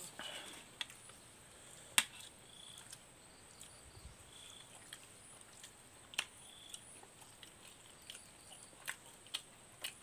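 Quiet eating sounds: mouths chewing sticky rice and laab, with scattered sharp clicks and smacks, the loudest about two seconds in. A faint steady high-pitched tone runs underneath.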